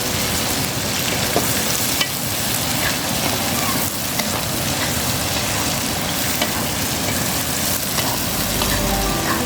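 Food sizzling steadily in hot oil in a pan, with a few light clicks.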